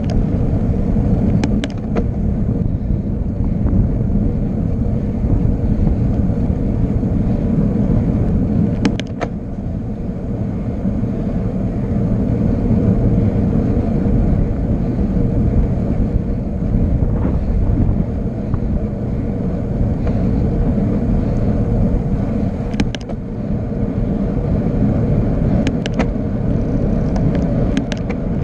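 Wind rushing over the microphone during a fast downhill descent: a loud, steady low rumble with a few brief clicks.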